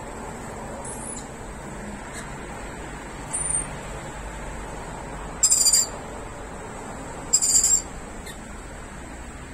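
Rainbow lorikeets calling: two brief high chirps, then two loud, shrill screeches of about half a second each, a couple of seconds apart.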